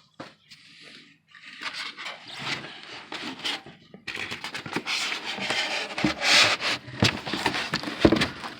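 Packaging being handled while a 3D printer is unpacked: rustling and scraping, louder from about halfway through, with a couple of sharp knocks near the end.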